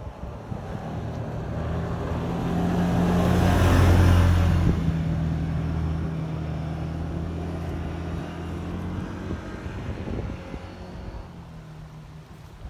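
A car passing on the road: engine and tyre noise swell to a peak about four seconds in, then fade away slowly over the next several seconds.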